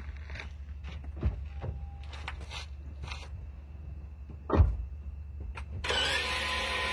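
Noise from a Toyota bZ4X's rear transaxle, heard from beneath the car, which the owner presents as a fault: a steady low hum with dull knocks, the loudest about four and a half seconds in. A loud hiss starts near the end.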